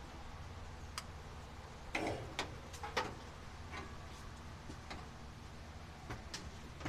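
Scattered light clicks and taps at irregular intervals, a few a second at most, over a steady low hum.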